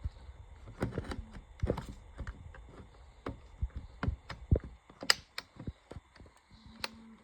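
Irregular clicks and knocks from a VW Jetta Mk4 door lock mechanism being worked by hand to test its newly fitted micro switch, with a sharp snap about five seconds in as the latch closes.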